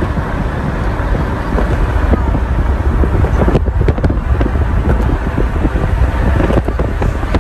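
Car driving at highway speed: steady road and wind noise with a strong low rumble, and wind buffeting the microphone.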